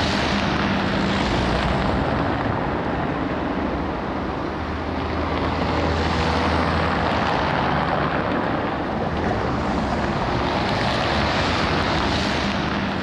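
Steady rushing noise with a low hum underneath, swelling and easing slowly every few seconds.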